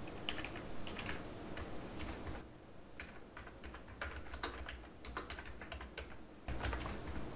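Typing on a computer keyboard: a quiet, irregular run of key clicks.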